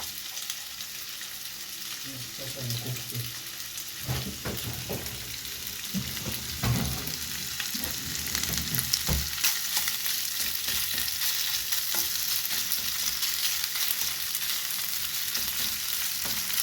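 Corn-flour-coated beef steak pieces sizzling as they fry in oil in a pan, with a few low knocks from stirring or pan handling in the first half. The sizzle grows stronger about halfway through and then stays steady.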